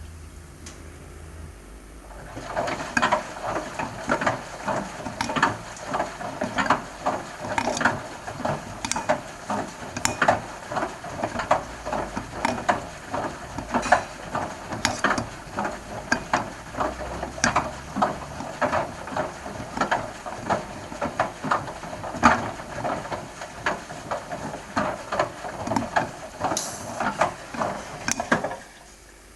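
Bosch washing machine drum turning with a pipe tumbling inside it: a run of irregular clattering knocks, several a second, starting about two seconds in and stopping shortly before the end.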